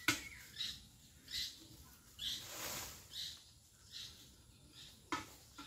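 A bird calling over and over in short high notes, roughly one every three-quarters of a second. A sharp knock comes just at the start and another about five seconds in, and a brief rustle around two and a half seconds in.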